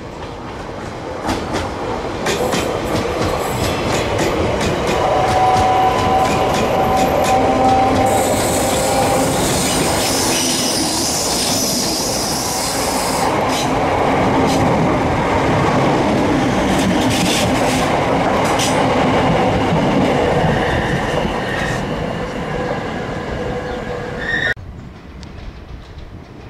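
Train running on the rails, its wheels squealing and clicking over rail joints; the sound builds over the first few seconds and cuts off abruptly near the end.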